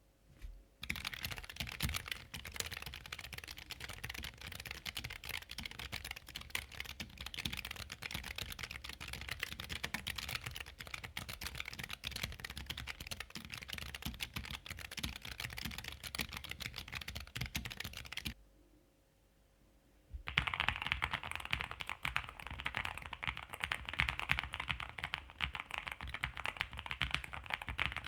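Fast, continuous typing on a low-profile mechanical keyboard, a dense stream of keystroke clicks. It stops for about two seconds about two-thirds of the way through, then resumes with a higher-pitched, clackier keystroke sound.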